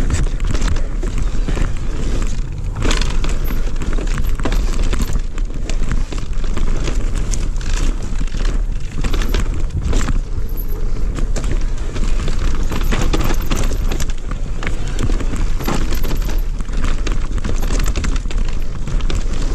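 Electric mountain bike riding fast down a dirt forest trail: a steady rush of tyre noise, with frequent rattles and clacks from the chain and frame over bumps. Wind buffets the camera microphone with a low rumble.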